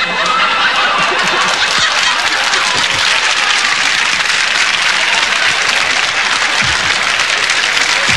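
Studio audience applauding and laughing, a dense steady clatter of clapping.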